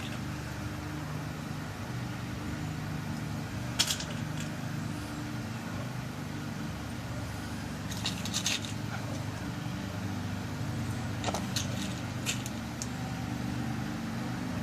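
Small metallic clicks as key pins are dropped one by one into a lock cylinder during rekeying. There are a few scattered taps: one about four seconds in, a quick cluster near eight seconds, and several more past eleven seconds, over a steady low hum.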